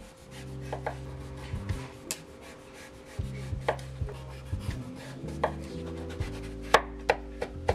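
Chef's knife cutting raw pumpkin on a bamboo cutting board: scraping strokes as the skin is sliced off, and irregular sharp knocks of the blade meeting the board, the loudest about two-thirds of the way through.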